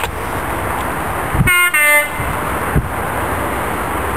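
Train's two-tone horn giving one short blast about a second and a half in: two notes in quick succession, lasting about half a second. A steady rumble of train noise runs underneath.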